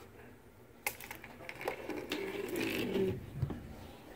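Handling noise from a plastic toy airliner on a wooden tabletop, with a sharp click about a second in. Then a low, wavering, voice-like drone that drops in pitch near the end.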